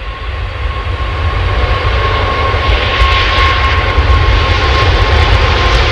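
Four-engine Airbus A380 jet airliner passing low on approach: jet engine noise grows louder over the first two seconds, then holds steady, with a steady whine over a low rumble.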